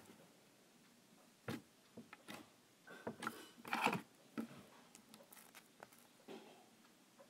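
White slime being stretched and folded by hand, giving scattered soft sticky clicks and crackles, busiest about three to four seconds in.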